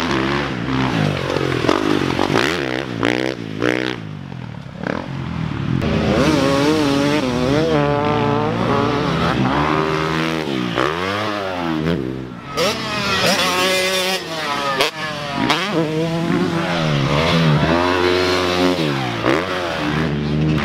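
Motocross dirt bikes riding a sand track, their engines revving up and dropping off over and over as the bikes accelerate, shift and pass close by.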